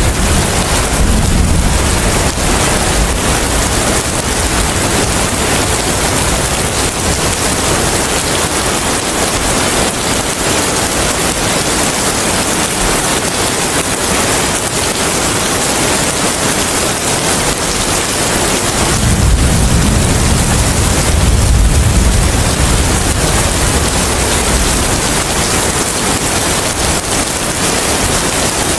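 Steady heavy rain hissing, with gusts of wind swelling into a low rumble at the start and again about two-thirds of the way through.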